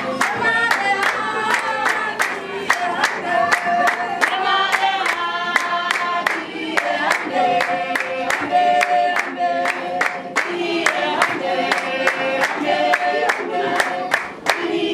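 Group of women singing a Basarwa (San) dance song in unison, with steady handclapping about three claps a second.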